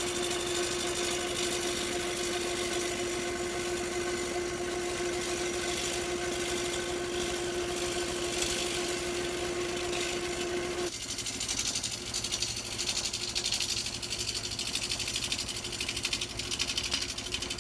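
Wood lathe spinning a large mahogany blank while a spindle roughing gouge cuts it down to round, making a fast, even chatter as the tool meets the rough, not-yet-round spots. A steady hum runs under the cutting and drops out about eleven seconds in, after which the cutting noise goes on, rougher and less even.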